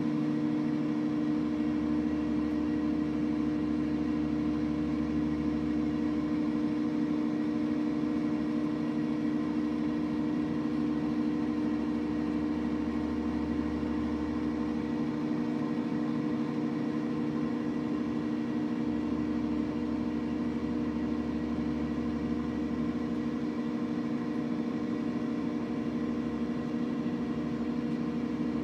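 Microwave oven running with a steady electrical hum, its deeper low layer dropping out twice for a few seconds.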